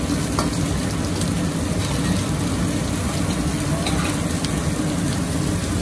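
Gas wok burner running at high heat, a steady low roar, with sauce and stir-fried beef and vegetables sizzling in the wok.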